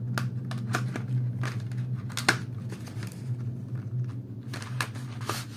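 Cardboard box of colour pencils being handled and opened: scattered short clicks, taps and crinkles of the packaging. A steady low hum runs underneath.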